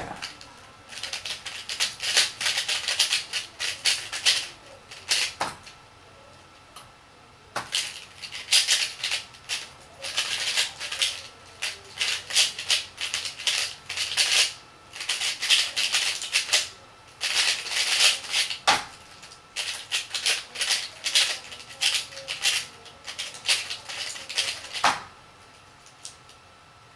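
Moyu LiYing 3x3 speedcube turned at speed-solving pace: rapid plastic clicking and clacking in bursts of a few seconds, with brief pauses between bursts and a longer quiet spell near the end.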